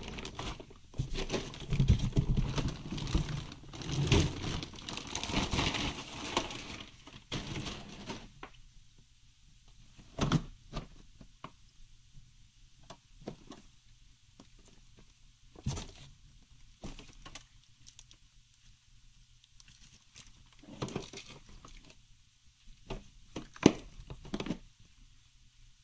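Clear plastic bag crinkling and rustling as it is pulled off a rack server, for about the first eight seconds. After that, a few scattered soft knocks and taps of gloved hands handling the metal chassis in its foam packing, the sharpest near the end.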